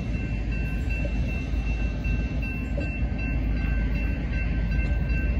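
Railroad grade-crossing bell ringing steadily over a low rumble.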